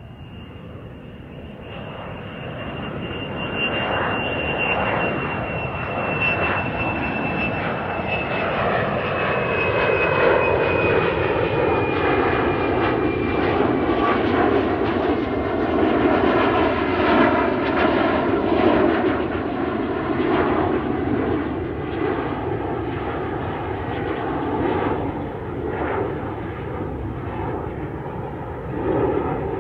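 The twin turbofan engines of a Virgin Australia Boeing 737 at take-off power as it accelerates and climbs away. The noise builds over the first few seconds into a loud, steady rush, with a high fan whine that slowly falls in pitch and fades out about halfway through.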